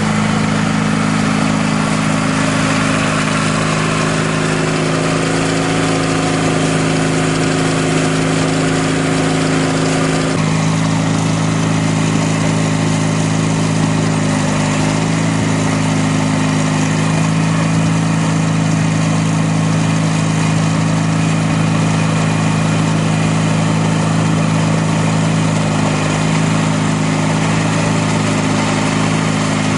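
Sears GT18 garden tractor's 18 hp Briggs & Stratton horizontal twin engine running steadily while the tractor drives with its shaft-driven snowblower. The engine note shifts about a third of the way in.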